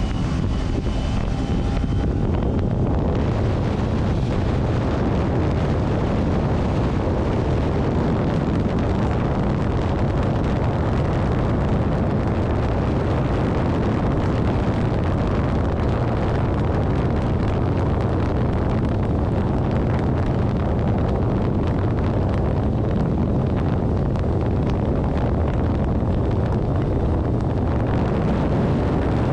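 Steady rushing of wind on the microphone over the road noise of a moving vehicle, unchanging throughout.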